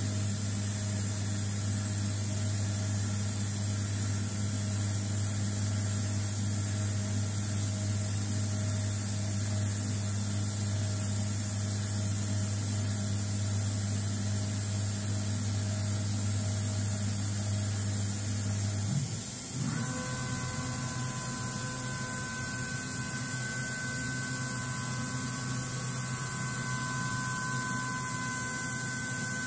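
Laguna Smart Shop II CNC router's equipment running with a steady low electrical hum. About two-thirds of the way through, the low hum drops out and a steady higher whine takes over.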